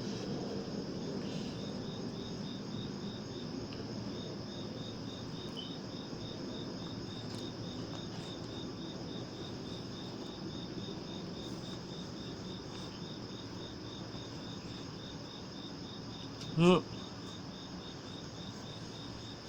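Insects chirping steadily in a fast, even pulse over a low background hum. About seventeen seconds in, a brief loud voice sound like a grunt cuts in.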